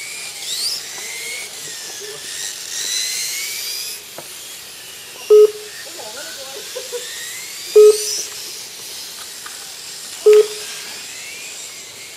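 Several 1/8-scale electric RC motorcycles racing, their high motor whines rising and falling in pitch as they speed up and slow for the corners. Three loud short electronic beeps about two and a half seconds apart come from the lap-timing system as bikes cross the sensor line.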